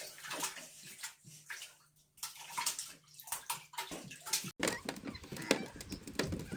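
Water splashing and sloshing in short, irregular dabs, which stops abruptly about four and a half seconds in, where a different, noisier sound takes over.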